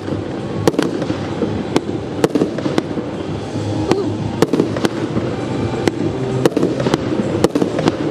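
Fireworks display: a dozen or so sharp bangs of bursting shells at irregular intervals, one to three a second, over a continuous low rumble.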